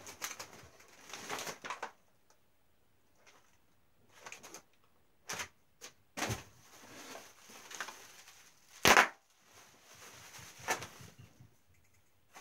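Plastic bubble-wrap packaging crinkling and rustling as it is handled, in irregular bursts, with one short, sharp, loud crackle about nine seconds in.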